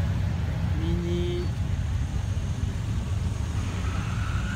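Classic cars' engines running as they drive slowly past in a line, a steady low rumble. A brief held note sounds about a second in.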